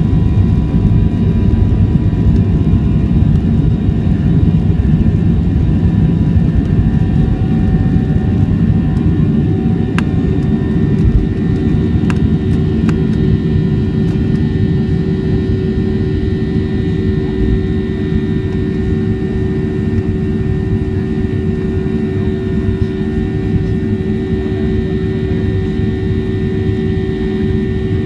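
Jet airliner's engines at takeoff thrust, heard from inside the cabin: a loud, steady rumble through the takeoff roll and lift-off, with a steady hum that comes through more clearly in the second half.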